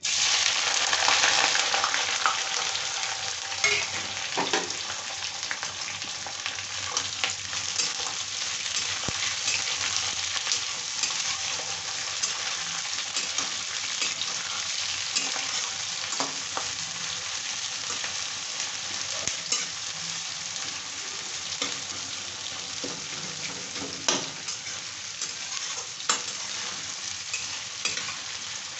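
Sliced onions sizzling as they hit hot oil in a kadai: the frying starts suddenly and loudest, then settles to a steady sizzle. A metal spatula scrapes and clicks against the pan now and then as the onions are stirred.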